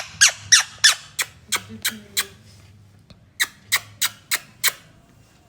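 Ringneck parrot giving a rapid run of short, sharp calls, about three a second; the calls break off a little after two seconds in and resume for about a second before stopping again.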